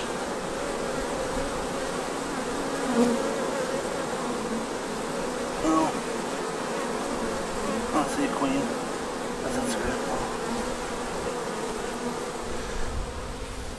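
A honey bee swarm buzzing: a steady hum of many bees in flight, with a few brief louder buzzes. The swarm is still gathering.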